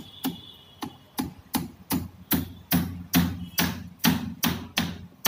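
A hammer striking the timber of a wooden column formwork (shuttering) box in a steady run of sharp blows, about two and a half a second, a dozen or more in all.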